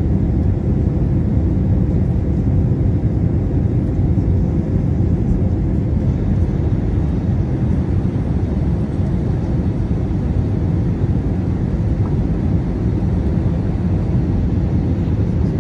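Steady low rumble of a jet airliner's engines and airflow heard from inside the cabin during the descent on approach.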